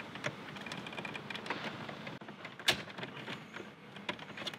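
Scattered small clicks and knocks of Volkswagen Passat interior parts being handled and worked on, with one sharper click about two and a half seconds in.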